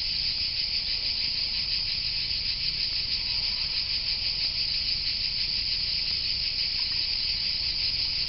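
Steady, unbroken chorus of singing insects, a dense high shrill that holds at an even level throughout.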